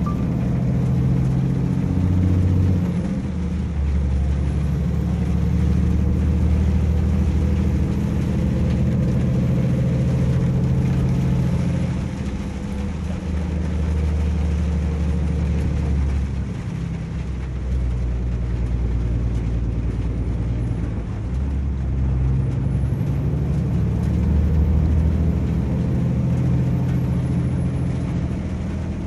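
Scania 540S truck's 13-litre inline-six diesel engine pulling uphill in Power Mode, heard from inside the cab: a steady deep drone whose pitch and strength shift in steps several times.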